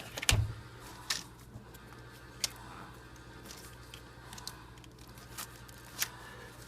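Handling noises from fitting spark plug wires around a distributor cap: scattered sharp clicks and light knocks of rubber wire boots and hands against the engine, the loudest a knock with a dull thud just after the start.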